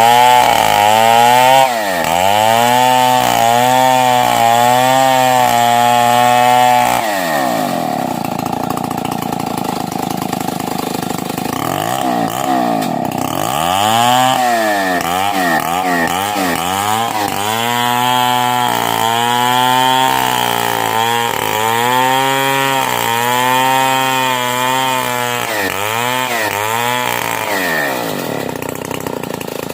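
Stihl 070 two-stroke chainsaw ripping lengthwise through a timber beam, its engine pitch rising and falling as it cuts. About a quarter of the way in it drops back to a lower, quieter idle for several seconds, then revs up and cuts again before dropping back near the end.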